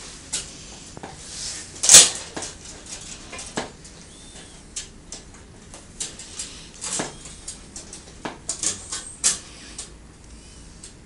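Metal fence hardware clicking and clinking: tension bands, bolts and chain-link mesh knocking against a metal fence post as the panel is fastened on, with one loud clank about two seconds in.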